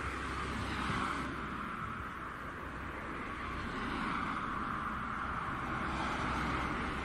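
Steady outdoor background rush, a hiss-like noise with gentle swells and no distinct events.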